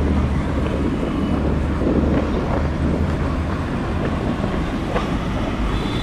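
Motor scooter riding through city traffic: a steady low engine and road hum under broad traffic noise.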